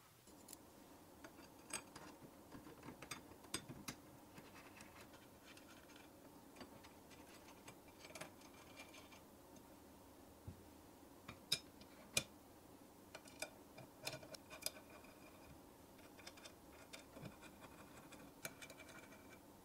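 Scattered small metallic clicks and taps, some ringing briefly, from hands adjusting the aluminium planer jig's rods, bolts and fittings.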